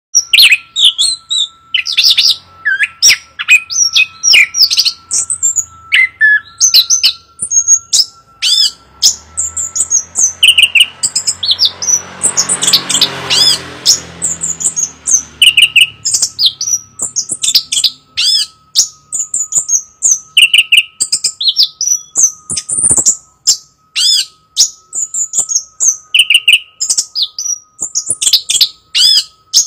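Chestnut-capped thrush singing: a rapid, loud run of high whistled phrases and sharp chirps, coming in short bursts with brief gaps. A faint steady high hum runs beneath, and a rushing noise swells and fades near the middle.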